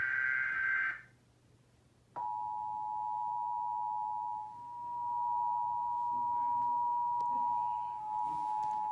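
Emergency Alert System broadcast tones: the end of a harsh digital SAME header data burst, then about a second of silence, then the two-tone EAS attention signal (853 and 960 Hz sounded together) starting about two seconds in and holding steadily. The attention signal marks an emergency alert message about to be read.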